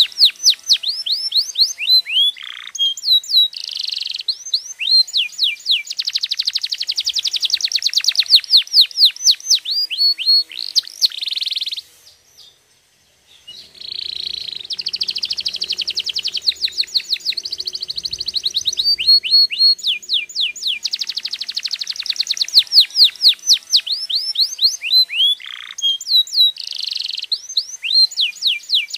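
Domestic canary singing: fast trills of rapidly repeated notes and sweeping chirps, loud and continuous, broken once by a pause of about a second and a half a little before halfway.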